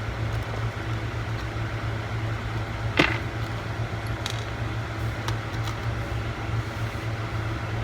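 Steady low hum under small handling noises of laptop screws and tools: one sharp click about three seconds in, then a few faint ticks.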